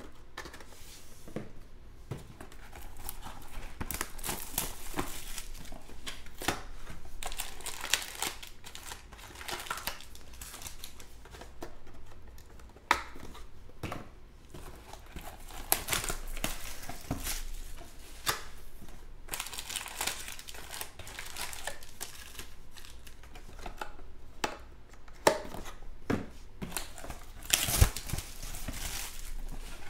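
Plastic wrappers of trading card packs (2020 Panini Chronicles Baseball) crinkling and tearing as the packs are ripped open and handled, in irregular sharp crackles throughout, loudest near the end.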